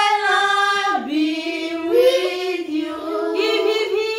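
Children and a woman singing together unaccompanied, a birthday blessing song held out in long drawn notes of about a second each.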